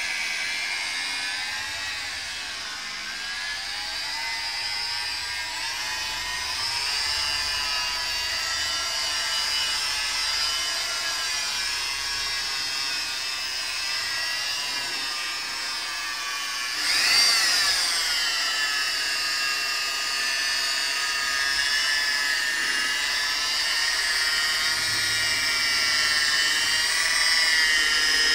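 Corded electric rotary polisher spinning a buffing pad on a car's painted door panel, its motor whine wavering in pitch. About two-thirds of the way through the whine briefly rises sharply in pitch and loudness, then falls back.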